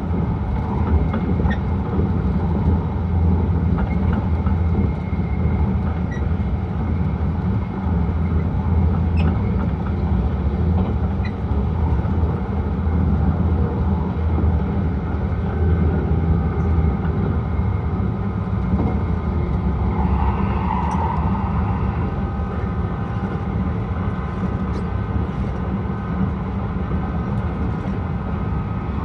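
Steady running noise heard inside a car of an E6-series Akita Shinkansen train cruising along: a low, even rumble of the wheels on the track.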